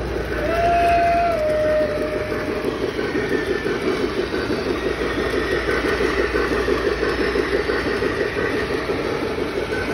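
Lionel model train running on a display layout: a steady clatter of small wheels on the track. In the first two seconds a single whistle-like note sounds, stepping down in pitch.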